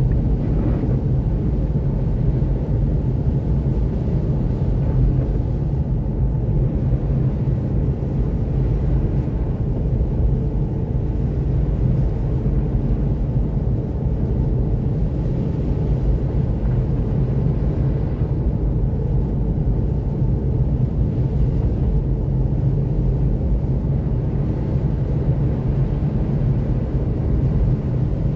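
Steady low rumble of a Seat Mii electric cruising at about 90 km/h on a snow-covered highway: tyre and road noise from Nokian R5 winter tyres running through deep snow, with wind noise and no engine sound.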